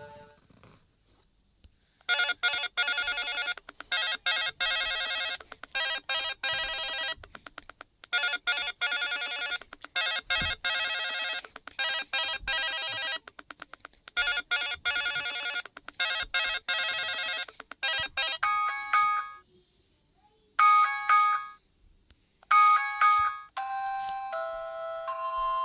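Mobile phone ringtones played one after another. First comes a fast electronic trilling ring in bursts of one to two seconds with short breaks. About eighteen seconds in, a different ringtone starts with short chiming notes and then runs into a longer held tune near the end.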